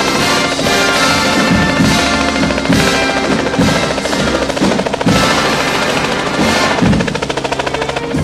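Instrumental music with drums, laid over the footage as the soundtrack.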